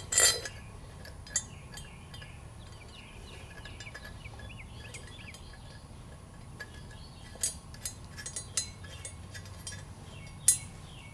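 Scattered metal clinks and light taps as bolts are hand-started into the end plate of a Gast rotary vane aerator, with a sharp clink just after the start and a few more in the second half, over a low steady hum.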